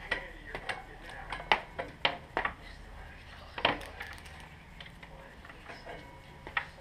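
Hand tools clinking and knocking on the front fork and axle hardware of a Suzuki GSX-R race bike as the front wheel is taken off. The sharp metal clicks come at irregular moments, the loudest about a second and a half in and again near four seconds.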